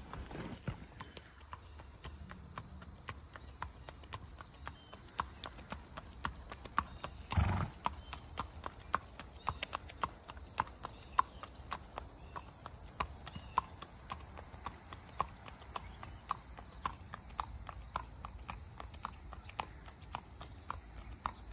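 A horse's hooves clip-clopping on an asphalt road at a steady walk, about two hoofbeats a second. A single short thud stands out about seven and a half seconds in.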